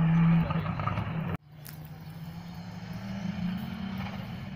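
Audi Quattro S1 E2 rally car's turbocharged five-cylinder engine running loud under power, fading a little, then cut off abruptly. After the cut it is heard again far off, growing slowly louder with its note rising a little as it approaches.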